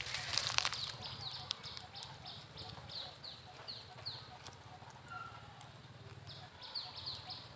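A brief crackling rustle in the first second, then a bird's short chirps, each falling in pitch, repeated about twice a second, over a faint low steady hum.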